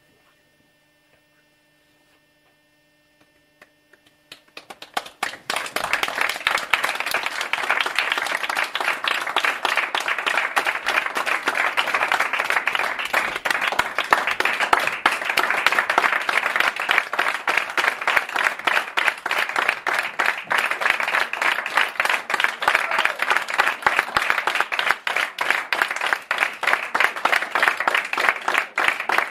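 A faint steady electrical hum for about four seconds, then a few scattered claps that quickly swell into sustained audience applause.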